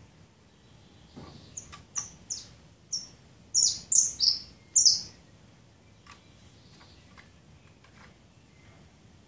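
Caged saffron finch giving a short run of sharp, high chirps, about eight notes starting a second or so in, the loudest ones packed close together near the middle.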